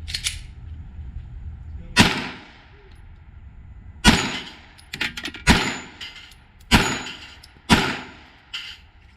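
Five loud pistol shots, about one to two seconds apart, each with a short fading tail, with a few fainter sharp cracks in between.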